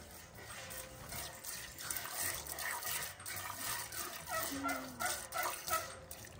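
Squirts of milk from hand-milking splashing into a stainless steel pail, with barn cats meowing over and over from about two seconds in.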